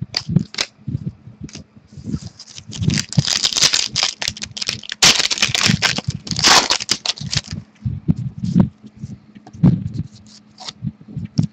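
Trading card packs and cards being handled: a wrapper crinkling and tearing, and cards sliding and tapping against each other, with a dense spell of crinkling through the middle.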